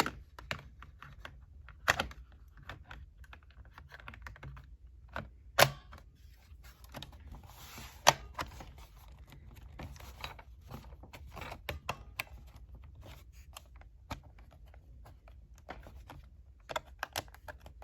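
Scattered sharp plastic clicks and knocks from a laptop being handled as its battery is put back in, with a few louder snaps about 2, 5.5 and 8 seconds in.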